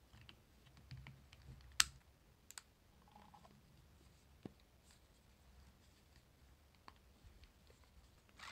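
A few small, sharp plastic clicks and taps from the casing of a Panasonic Dentacare EW1211 water flosser being snapped back together and handled, the loudest click about two seconds in.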